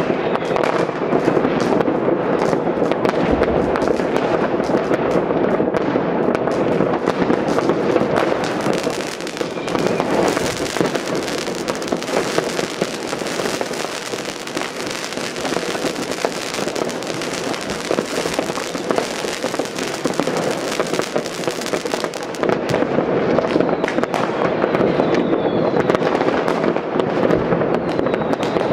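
New Year's Eve fireworks and firecrackers going off all over a city: countless distant bangs and pops run together into a steady, unbroken crackling din, with a couple of faint whistles near the end.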